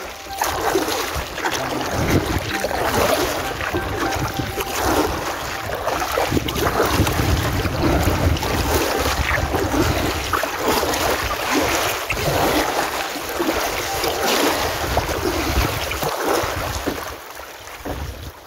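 Wind gusting on the microphone over water splashing and lapping as a kayak is paddled along.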